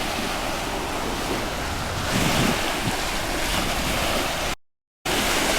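Sea waves washing on the shore, with wind buffeting the microphone; the sound cuts out completely for about half a second near the end.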